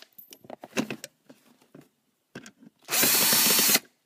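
Hitachi cordless drill/driver spinning a screw out of a car's footwell trim panel in one burst of just under a second, about three seconds in. Before it come a few light clicks of the tool being handled.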